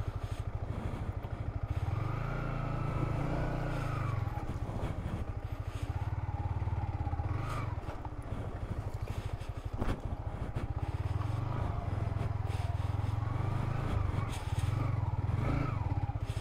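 Yamaha MT-15's single-cylinder engine running in low gear on a rough rocky track, revving up and easing off several times. A couple of sharp knocks about halfway through.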